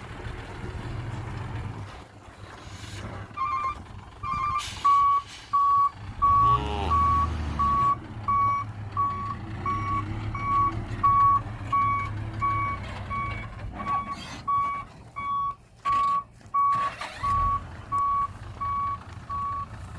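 Dump truck's reversing alarm beeping, one steady high tone repeating a little under twice a second, starting a few seconds in, over the low rumble of the truck's diesel engine.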